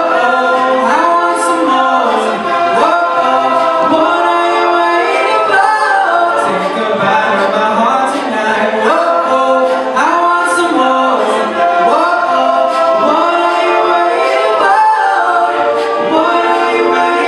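All-male a cappella group singing: a lead voice into a microphone over close backing vocal harmonies, with no instruments.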